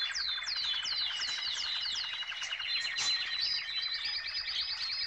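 Opening of a music track: a rapid series of high chirps, each sliding downward, about four a second, over a steady high tone.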